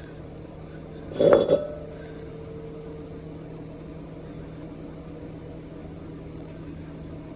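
Clear glass jar clinking once against something hard about a second in, ringing briefly, over a steady low hum.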